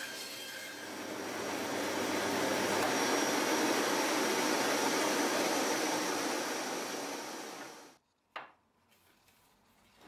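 Bandsaw and its dust-extraction vacuum running without cutting: a steady hiss with a faint high whine, which cuts off about eight seconds in. A single short knock follows soon after.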